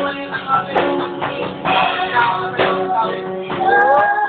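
Electric guitar strummed through an amplifier while a man sings into a microphone, recorded on a Nokia 3110 mobile phone. The sound is dull, with no treble.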